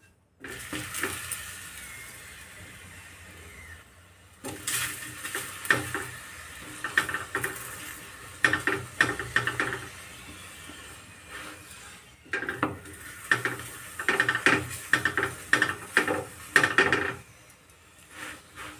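A paratha sizzling in oil on a hot tawa just after it is flipped, followed by a steel spoon scraping and clinking on the tawa in repeated bouts of strokes as oil is spread over the paratha.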